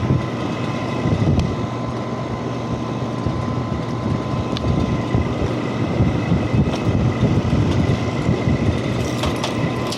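Air-conditioning or refrigeration equipment running steadily: a constant mechanical hum with a faint steady whine, over a fluctuating low rumble.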